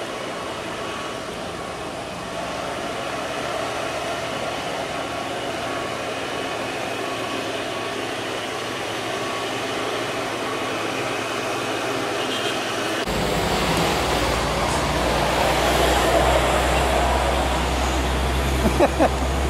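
Heavy truck engines and road traffic running steadily, with a faint held engine tone. About two-thirds of the way through the sound cuts abruptly to a louder, deeper rumble of traffic.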